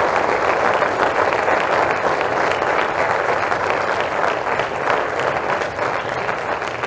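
Auditorium audience applauding, a dense steady clapping that thins slightly toward the end.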